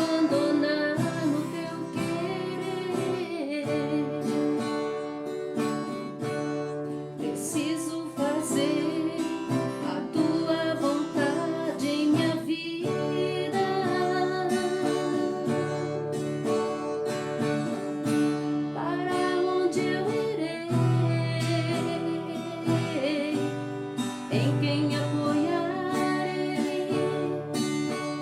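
Gospel song in Portuguese: acoustic guitar strumming under a singing voice.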